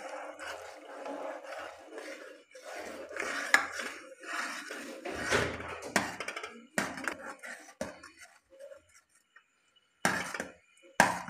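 Cornstarch slurry poured into simmering fish stock in a metal saucepan, then a metal spoon stirring, scraping and clinking against the pan, with a few sharper clinks near the end.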